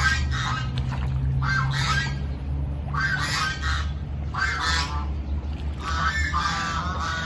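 Domestic geese honking, a burst of harsh calls roughly every second or so, over a steady low hum.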